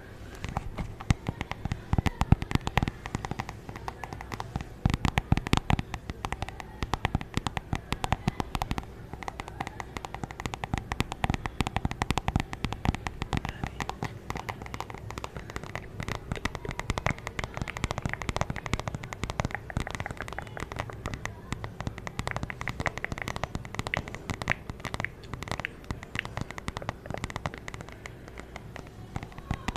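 An object handled and scratched close to the microphone as an ASMR trigger, making dense, irregular crackling and clicking.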